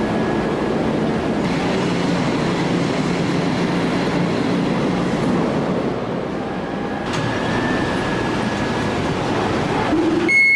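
Loud, steady machinery noise of a heavy forge shop, with a few faint held tones and no distinct hammer or press blows.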